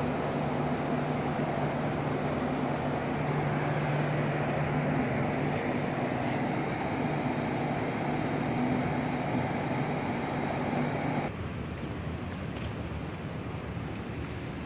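Steady mechanical rumble with a low, even hum, like a running engine or large machine, over a wash of outdoor noise. About eleven seconds in, the hum cuts off suddenly and a quieter, plainer background noise remains.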